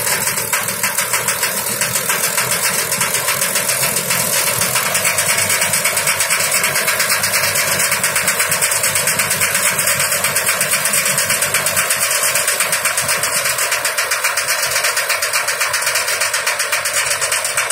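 Combine harvester running steadily as it cuts standing wheat, its engine and machinery giving a loud, rapid, even pulsing.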